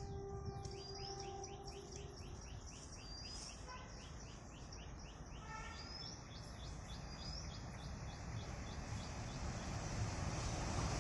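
Birds calling in a quick run of short, falling chirps, several a second, which die away about six seconds in. Under them the low rumble of an approaching diesel-hauled train, led by twin WDM-3D locomotives, grows steadily louder toward the end.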